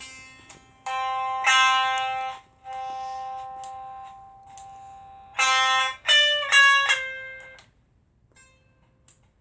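Single string of a vintage Fender Duo Sonic electric guitar plucked through a small battery-powered amp: several notes, one ringing for about three seconds, then two higher-pitched notes about six seconds in that fade out, followed by a few faint clicks.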